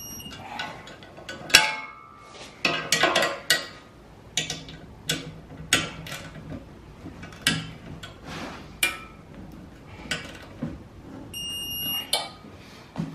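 Irregular metal clicks and clinks from a torque wrench and a 13 mm spanner tightening small steel hitch bolts. Near the end comes one short electronic beep from the digital torque wrench, the signal that the set torque of 27 newton-metres has been reached.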